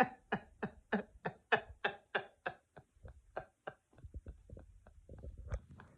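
A woman laughing quietly after her own joke: a run of short breathy 'ha' pulses, about three a second, fading away over the first few seconds, followed by faint low rumbling.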